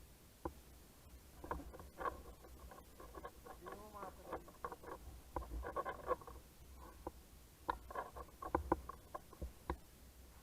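Irregular faint clicks and taps, clustered in quick runs around the middle and near the end, with a few brief squeaky wavering sounds about four seconds in.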